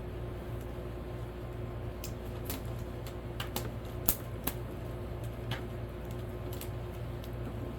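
Scattered light clicks and taps from hands handling the unit and its power cord, the loudest just after four seconds, over a steady low hum.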